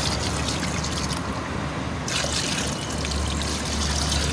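Water poured from a plastic dipper splashing into a shallow pool of rusty water, flushing out a freshly unclogged water pipe. The splashing eases briefly a little after a second in, then picks up again.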